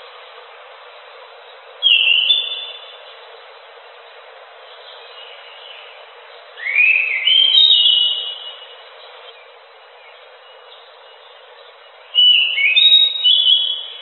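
Anis macan thrush singing three short bursts of fluty, rising whistled phrases, about 2, 7 and 12 seconds in, over a steady hiss.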